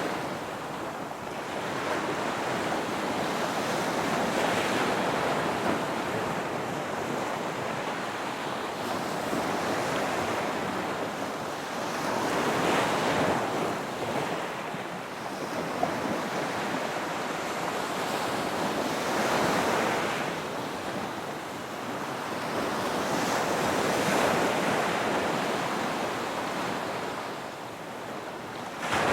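Ocean surf: waves washing in and drawing back, swelling and fading every few seconds, with wind in the background.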